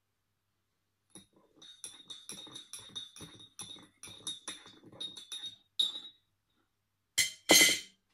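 A teaspoon stirring in a small cup, clinking against its sides about four or five times a second with a ringing note, ending in one louder clink. Near the end come two short, loud, rustling noises.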